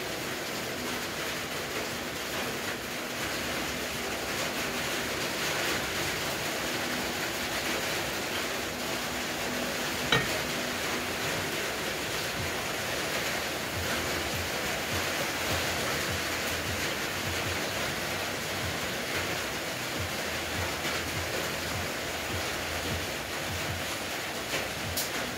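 Propane torch flame burning steadily with an even rushing hiss, heating a seized threaded part on the vehicle's underside to loosen it. A single sharp metal clink about ten seconds in.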